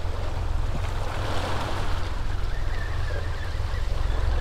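Steady low wind rumble on the microphone mixed with sea water lapping and splashing around the boat and the rig's pilings.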